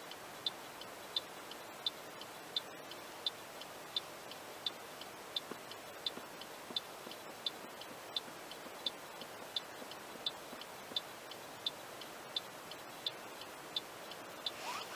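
Car turn-signal indicator ticking steadily, about two and a half ticks a second, heard from inside the cabin over a faint hum. A short rising whine comes in near the end.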